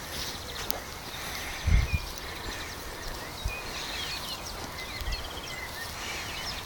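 Outdoor ambience in a pasture: small birds chirping and trilling in the background over a steady hiss, with a few low thumps, the loudest about two seconds in.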